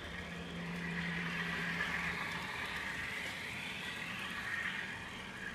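N scale FPA-4 diesel locomotive model's sound decoder playing diesel engine sound through its tiny onboard speaker as the model runs, thin and tinny with a wavering pitch. A steady low hum sits under it for the first two seconds or so.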